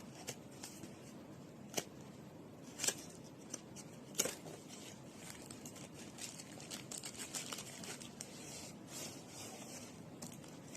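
Hands opening a small product box and handling its packaging: light rustling and crinkling, with a few sharper clicks and knocks about 2, 3 and 4 seconds in.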